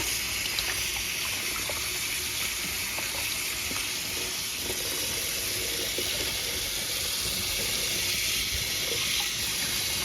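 Tap water running steadily into a sink, a smooth hiss, while a water filter part is rinsed under it, with a few faint small knocks.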